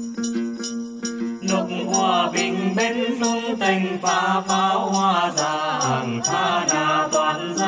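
Tày then song: a plucked đàn tính lute with a steady rhythm of shaken jingle bells. About one and a half seconds in, a singing voice enters with a wavering melodic line.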